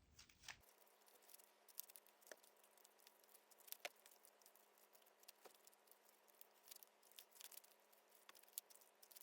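Near silence with faint, scattered little clicks and pops of slime being stretched and folded by hand to work air into it.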